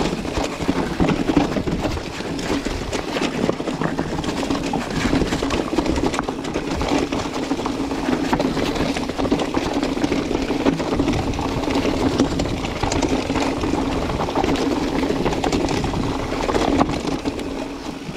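Mountain bike rolling over rough ground: steady tyre noise with many small rattles and knocks from the bike.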